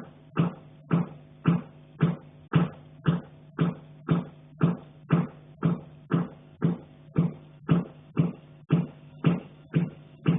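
Steady, regular knocking from the attic, about two knocks a second without a break, each knock leaving a brief low ringing tone.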